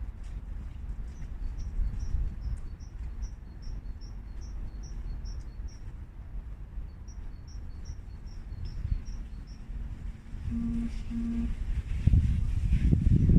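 A small bird repeating a short, high chirp about twice a second, with a brief pause midway, over a steady low rumbling noise. Near the end, louder low thumps begin.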